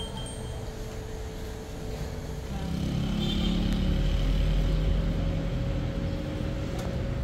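A motor vehicle's engine rumbling close by, growing louder a few seconds in and then easing off slightly.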